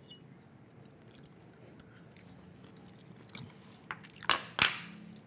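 Knife and fork working on a ceramic plate while cutting a bite of stuffed baked potato: faint scraping and light ticks, then a few sharp clicks near the end, the last with a brief ring.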